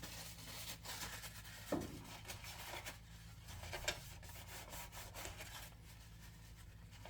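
Faint rubbing and scraping with a few small clicks of hands working the plastic clips and circuit board of a range's display assembly, over a faint low hum.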